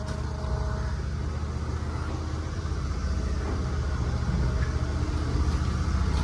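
A motor vehicle's engine idling steadily, with a fast, even pulse that grows slightly louder near the end.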